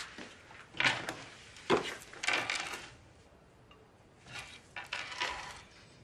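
Household clatter of crockery and cutlery: two sharp knocks about a second and a half apart, then a short clattering, and a few fainter knocks later on.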